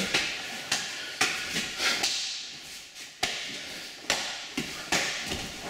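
Kicks and blocks landing in a two-person karate drill: a string of sharp slaps and thuds of legs and arms striking the body, eight or nine hits at an uneven pace of about one or two a second.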